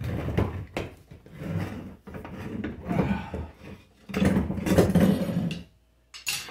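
Steel tire irons levering an old dry-rotted tire bead off a mower wheel rim: four bursts of rubber creaking and scraping against metal with the irons knocking, then a sharp clatter near the end as the irons are set down on metal.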